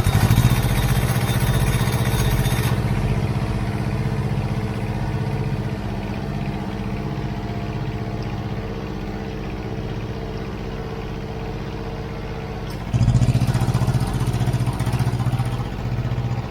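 Thermo King truck APU's small diesel engine running steadily just after start-up, its drive belt freshly tightened to stop a squeal. A high hiss drops away about three seconds in, and the running sound steps up louder and heavier about thirteen seconds in.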